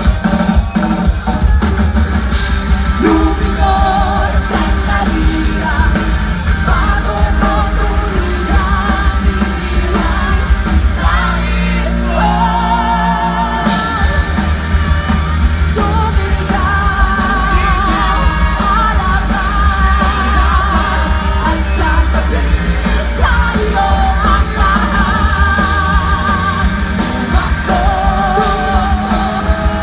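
Rock band playing live, with a male lead singer over electric guitars, bass, keyboards and drums. It is loud and dense, and the upper instruments thin out briefly about twelve seconds in.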